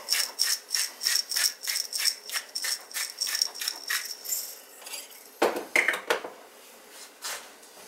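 Salt shaker shaken rapidly, a quick rattle of about five shakes a second that stops about four seconds in.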